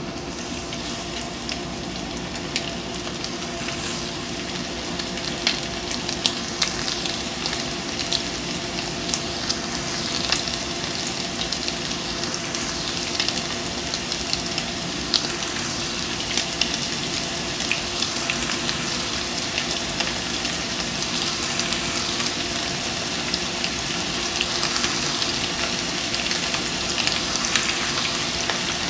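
Breaded channel catfish pieces deep-frying in hot oil in a skillet: a steady sizzle with frequent sharp pops and crackles, growing slightly louder as more pieces go into the pan.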